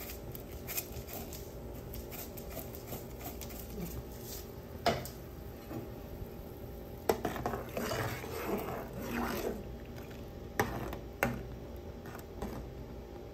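A ladle stirring simmering broth in a cooking pot on a gas stove, with a few sharp clinks against the pot and a stretch of stirring scrapes about halfway through, over a steady low background.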